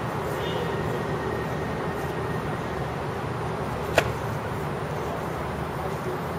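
A single sharp clack about four seconds in as the claymore and katana sparring swords strike together, over a steady rumble of distant city traffic.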